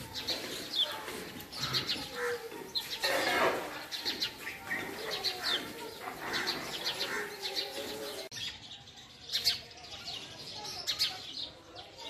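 House sparrows chirping in a tree: short, repeated cheeps, with a brief rustle about three seconds in. The recording changes abruptly about eight seconds in, and the background drops away while the chirping goes on.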